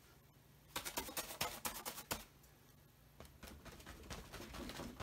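Paintbrush dabbing and scrubbing paint onto a canvas: a quick run of scratchy taps about a second in, then after a short pause a steady back-and-forth scuffing of bristles on the canvas.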